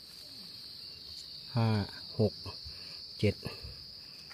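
Steady, high-pitched drone of insects. Three short, low, hum-like voice sounds from a man break in over it: a longer one about a second and a half in, then two brief ones.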